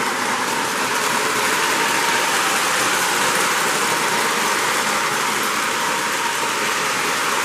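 Lionel 736 O-gauge steam locomotive running with a long, heavy train: a steady, even hiss and whir of its motor and wheels on the track, with no clear beat.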